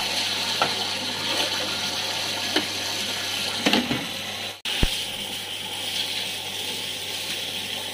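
Tap water running hard into a plastic basin, a steady splashing rush, with a few short knocks of plastic buckets being handled.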